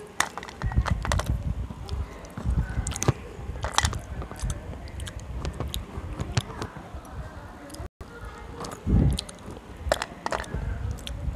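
Slate pencils being snapped and bitten right at a clip-on microphone: many sharp cracks and crunches, with pieces clattering on a steel plate and low rumbling from the microphone being handled. The sound drops out completely for a moment about eight seconds in.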